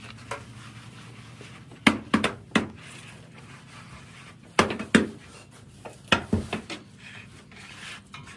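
Sharp knocks and scrapes of a worker filling and levelling a cement tile mould at a hand-operated tile press, in short clusters of two or three, over a faint steady hum.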